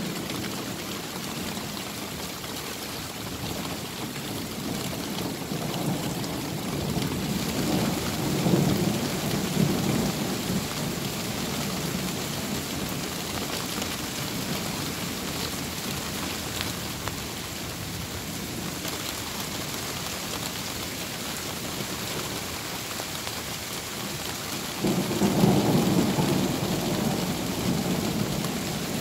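Torrential rain falling steadily, with thunder rumbling low twice, a long rumble from about six seconds in and a louder one near the end, without a sharp crack.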